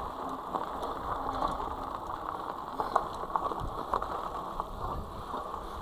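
Himiway Zebra fat-tire e-bike riding over a rough dirt trail: tyre noise on the ground, with the chain and frame rattling in frequent small clicks and knocks.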